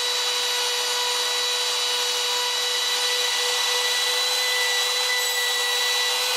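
Bosch trim router running with a steady high whine while its carbide bit cuts a helical thread groove into a slowly turning birch cylinder.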